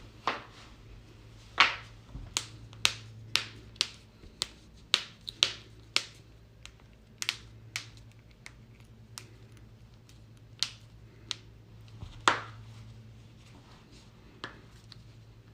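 A series of about twenty sharp, irregular cracks and pops: joints cracking during a back-cracking or chiropractic adjustment. They come close together over the first half and more sparsely after, over a low steady hum.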